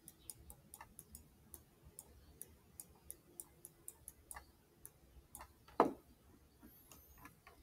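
Light, irregular clicks of a stylus tip tapping a tablet screen while a Chinese character is handwritten, a few per second, with one louder tap about six seconds in.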